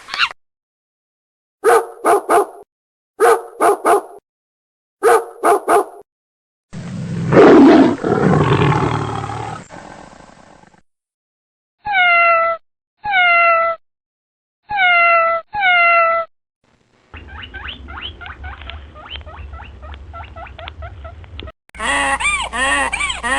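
A string of separate animal sound clips with dead silence between them: short calls in three groups of three, a long loud roar about seven seconds in, then four short calls that each fall in pitch, and more animal calls near the end.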